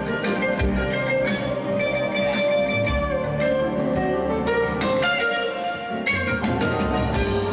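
Live band playing an instrumental groove at a sound check: guitar over bass and drums, with sustained notes and steady drum hits.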